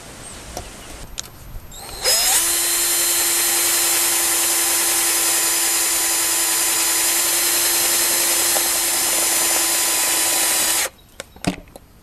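Power drill starting with a brief rising whine about two seconds in, then running steadily at one pitch for about nine seconds at the relay's mounting on a sheet-metal control panel, and cutting off suddenly. A few short clicks follow.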